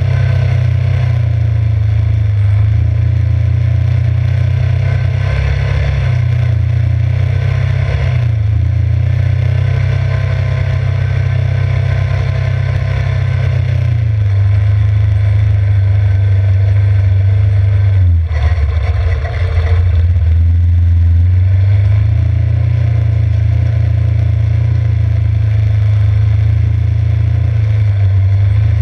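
Yamaha Grizzly 600 ATV's single-cylinder four-stroke engine running steadily under way. The engine note dips and wavers briefly about 18 seconds in, then settles back to a steady drone.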